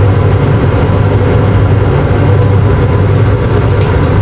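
A loud, steady low drone of a running motor or fan, unchanging throughout.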